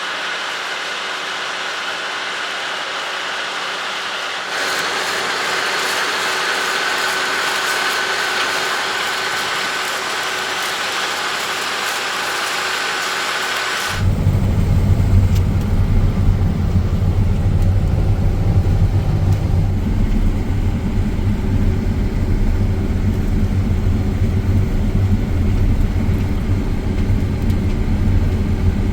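John Deere X9 1100 combine harvester running while harvesting wheat. First comes a steady hiss of machinery with a high whine, which turns suddenly about halfway through into a louder, deep engine rumble.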